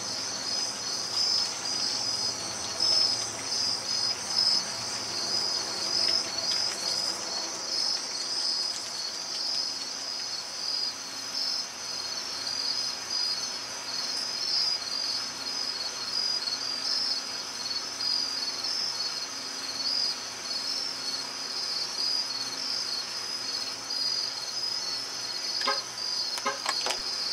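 Crickets chirping in a dense, continuous chorus of rapid high-pitched pulses, with a few faint clicks near the end.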